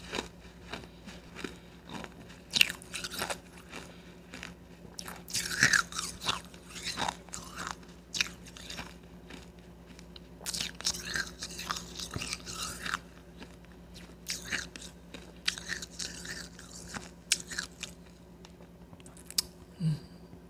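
Blended, powdery ice being bitten and chewed, close-miked: irregular crisp crunches with chewing between them. The crunches die away near the end.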